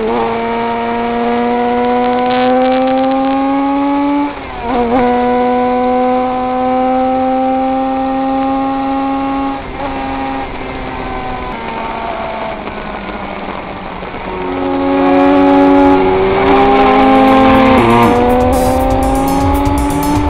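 König 500cc two-stroke flat-four racing motorcycle engine at full throttle, heard from on board, its pitch climbing steadily in each gear with sharp drops at upshifts about four and ten seconds in. Near the end the engine climbs again, louder, with hiss and faint music laid over it.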